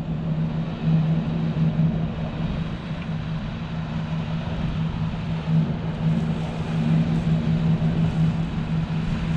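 Party fishing boat's engines running steadily as it motors out through the inlet: a constant low drone over a hiss of wind and water noise.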